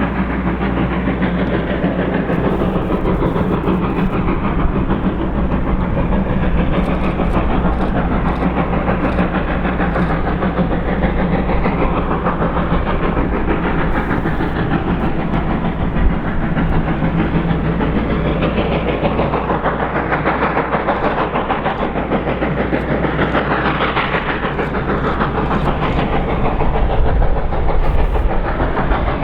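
Reading & Northern 425, a 4-6-2 steam locomotive, running with its passenger train: a steady, dense running noise with no break, and one sharp click about sixteen seconds in.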